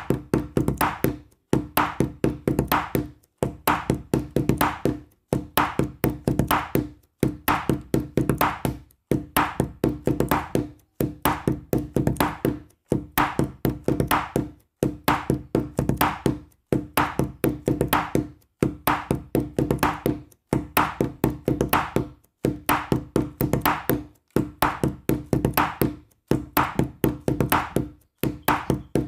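Background music: a looping tune of quick, struck notes that repeats in short phrases about every two seconds.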